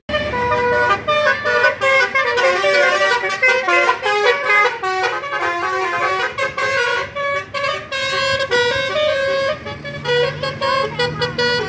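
Tour bus's Basuri telolet horn, a multi-trumpet musical air horn, playing a fast tune of quickly changing notes.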